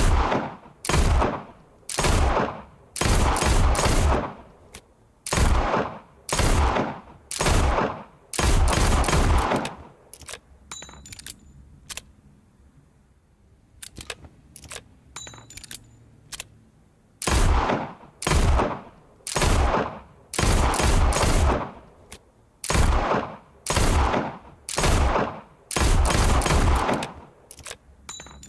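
Revolver gunshot sound effects fired as single shots and quick strings, each shot with a short fading tail. There is a lull in the middle with only a few faint metallic clicks.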